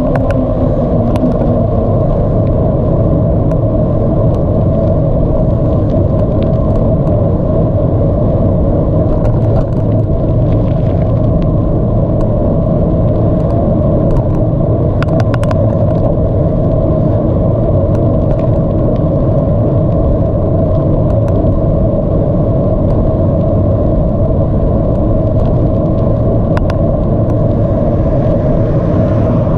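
Wind buffeting the microphone and tyre noise from a bicycle in motion, a steady loud rumble, with a few sharp clicks or rattles from the bike.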